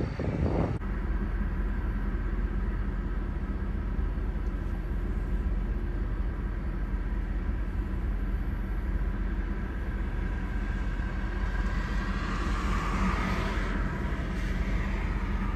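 Steady low rumble of storm wind with a faint steady hum. A car passes about twelve seconds in, its tyre hiss swelling and fading.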